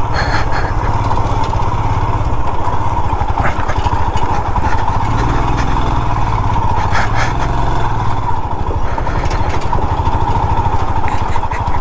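Motorcycle engine running steadily at low revs while riding over a rough gravel track, heard close to the rider's microphone.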